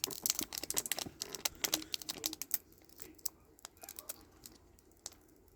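Pokémon trading cards being flicked and slid over one another as a freshly opened pack is looked through: a quick run of light clicks and snaps that thins out to a few scattered clicks after about two and a half seconds.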